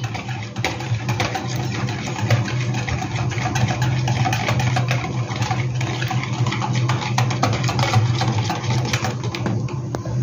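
Wire whisk beating eggs in a plastic bowl: a fast, uneven run of light clicks and taps of the wires against the bowl, stopping just before the end. A steady low hum runs underneath.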